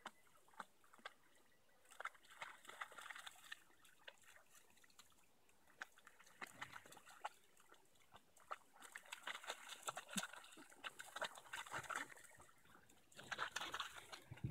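African wild dogs lapping and splashing at the water's edge: faint wet lapping and sloshing that comes in a few short spells.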